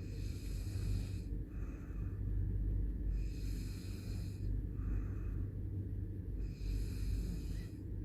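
A man snoring in an even rhythm: three snores about three seconds apart, each followed by a shorter, softer breath.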